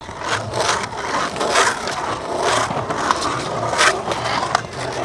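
Skateboard wheels rolling over stone paving, a rough grinding hiss that swells and fades several times, with a couple of short sharp clicks in the second half.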